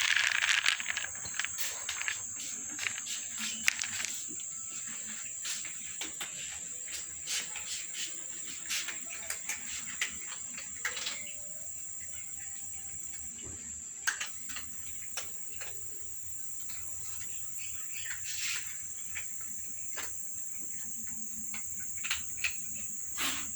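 Crickets chirring as one steady high-pitched drone, with scattered light clicks and knocks over it. The loudest is a short noisy burst at the very start.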